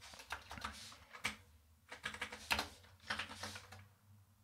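Typing on a computer keyboard: quick runs of keystrokes broken by short pauses, as code is edited.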